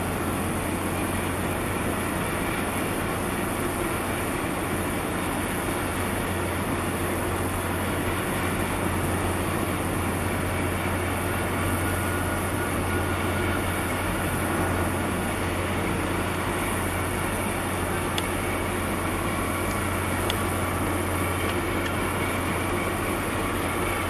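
Steady low drone of ship engines, a harbour tug working against the hull of a large container ship, over a constant rushing noise.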